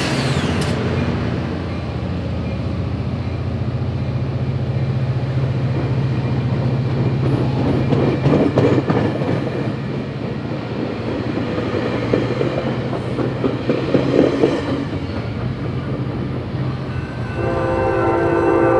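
Diesel-hauled train running past, its engine droning low under the rumble and clatter of wheels on the rails. Near the end the locomotive's air horn sounds a sustained chord.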